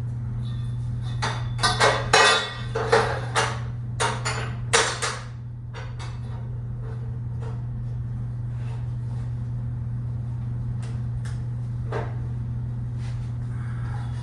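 Scrap steel tubing clanking and clattering as it is handled and set down: a run of sharp metal knocks over a few seconds, then only occasional light clicks, over a steady low hum.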